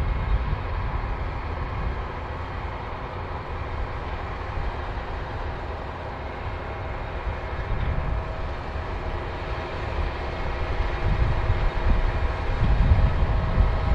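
New Holland combine harvester running while harvesting barley: a steady machine drone with several constant whining tones over a low rumble, which grows louder over the last few seconds.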